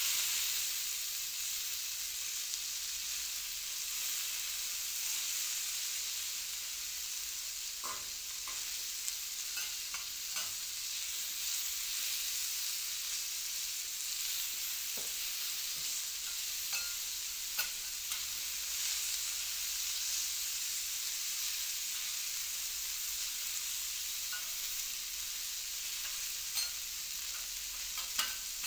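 Food sizzling steadily on a hot teppanyaki griddle, with a few light clicks and taps here and there.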